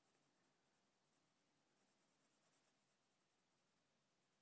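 Very faint scratching of a graphite pencil shading on paper with firm pressure, barely above silence.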